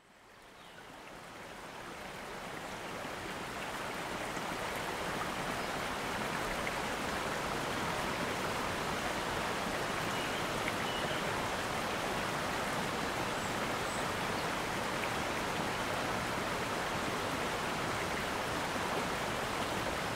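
Rushing river water over rocks: a steady, even rush that fades in over the first few seconds and then holds level.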